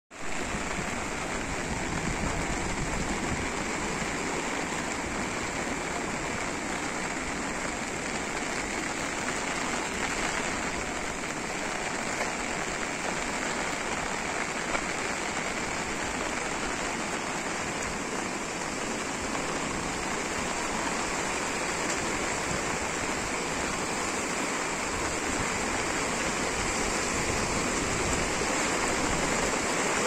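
Steady rushing of a swollen, flooding river, its water noise mixed with falling rain.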